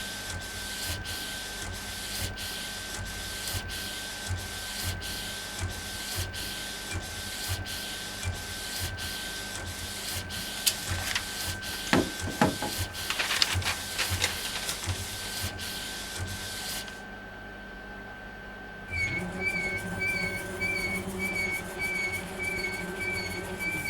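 Epson Stylus Pro 4880 wide-format inkjet printer printing, its print-head carriage sweeping back and forth in a steady rhythm of about two strokes a second, with a few louder clicks midway. Near the end the rhythm stops for a moment and a different motor sound with a warbling high whine takes over.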